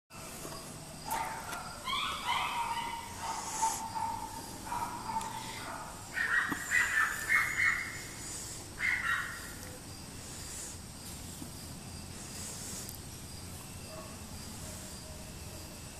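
A run of rough animal calls for about the first nine seconds, loudest between about six and nine seconds in, then only a steady outdoor background.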